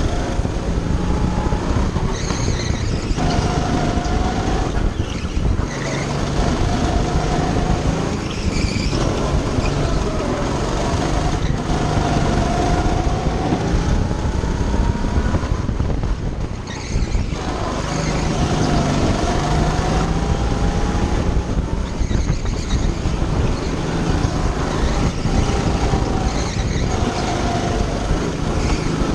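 Go-kart engine heard from on board, running at full throttle, its pitch climbing along each straight and dropping back as the driver lifts for the corners, over and over.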